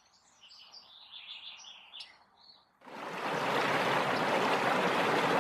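Birds chirping faintly, then a little under three seconds in the rushing of river rapids comes in suddenly and swells to a loud, steady rush of water.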